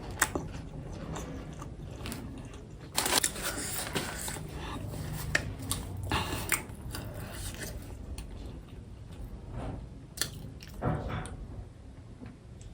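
Close-miked chewing and biting of momo dumplings, with irregular clicks and short noisy bursts, a few louder ones spread through.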